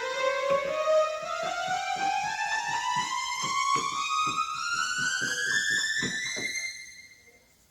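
Casio CTK-7300IN electronic keyboard sounding through its built-in speakers: a held tone gliding slowly upward in pitch over a quick, even ticking beat, fading out near the end.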